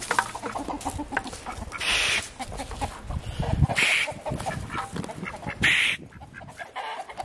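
Chickens clucking, with a few louder, short scratchy bursts about two seconds apart.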